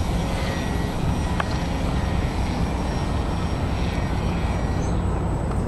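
Electric RC airplane's motor and propeller buzzing steadily in flight, with faint high steady whine tones, under a low rumble of wind on the microphone.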